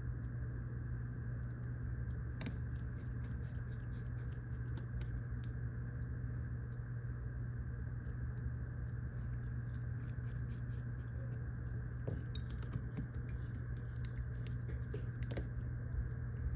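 Faint, irregular small clicks and ticks of a precision screwdriver working tiny screws and metal plates back into an iPhone, over a steady low hum.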